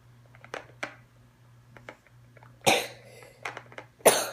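A child coughing twice, two harsh bursts about a second and a half apart, after a few faint clicks.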